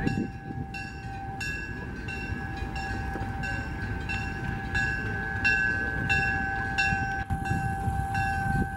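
Diesel locomotive running slowly, its engine a steady low rumble, while a bell rings steadily about twice a second over a steady high tone.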